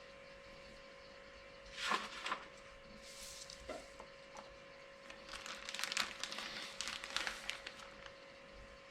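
Packaging being handled: crackling and rustling in a burst about two seconds in and a longer stretch from about five to eight seconds, over a steady faint hum.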